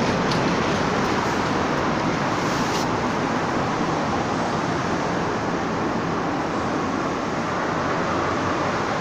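Steady, even rushing background noise with no distinct events, the kind heard from road traffic.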